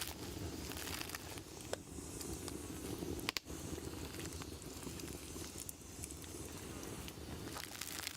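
Open campfire crackling, with scattered sharp clicks and one louder snap about three seconds in.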